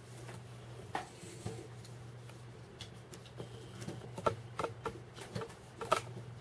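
Light clicks and taps of plastic kit parts being handled as a screwdriver turns small screws into a plastic toy motor housing. The scattered clicks come more often in the second half, over a faint low steady hum.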